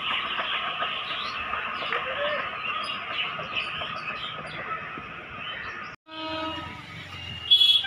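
Steady open-air background with birds chirping. After a sudden cut about six seconds in, an electric locomotive's horn sounds, with a short blast and then a louder one near the end.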